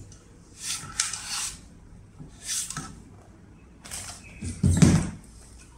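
Short scraping and rubbing sounds of plastic and wiring as an electric scooter's battery pack is worked out of its deck, with a heavier thump about three-quarters of the way in.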